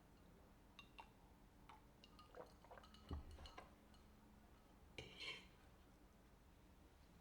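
Faint clinks and light taps of kitchenware being handled, with a soft knock about three seconds in and a brief ringing clink about five seconds in.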